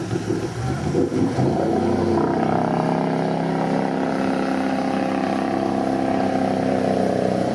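River jet boat engine running, rising in pitch about two seconds in as it speeds up, then holding steady.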